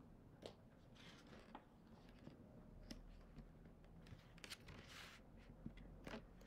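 Near silence: faint room tone with a few soft clicks and rustles.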